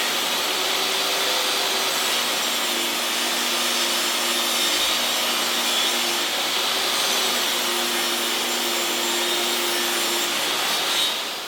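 Table saw running steadily while cutting a bevel along the top edge of a rough-cut pine roof board, then winding down near the end.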